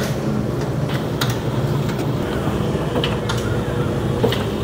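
Bakery dough-handling machinery running with a steady low hum, with a few sharp clicks and clanks scattered through it.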